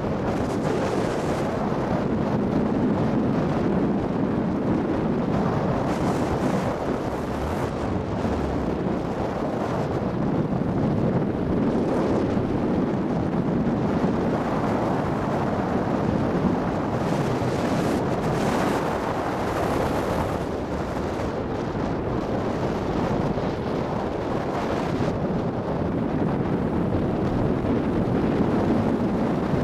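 Wind rushing over the microphone of a skier going downhill, mixed with the hiss of skis on packed snow. The hiss brightens briefly at a few points, as on turns.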